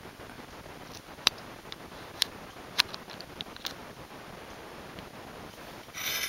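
A few sharp, separate clicks and ticks from hands working over a plate, then a short scrape near the end as a ceramic plate is slid and turned on a granite countertop.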